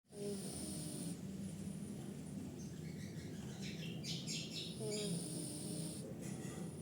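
A sleeping cat snoring: a steady low rumble, with high chirps over it, most of them between about three and five seconds in.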